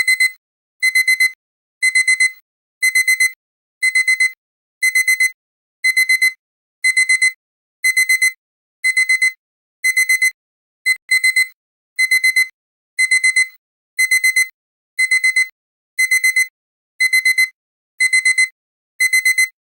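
Digital alarm-clock beeping, the signal that the countdown timer has reached zero: a high electronic tone in quick groups of four beeps, repeating about once a second.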